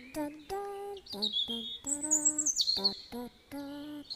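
Bird chirping and twittering, loudest about two seconds in, over a voice singing a string of short notes.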